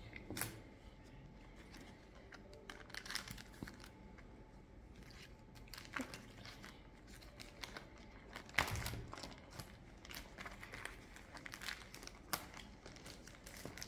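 Faint crinkling and rustling of clear plastic album sleeves and cardboard trading cards as cards are slid into the pockets of a card binder, with scattered light taps and one louder rustle a little past the middle.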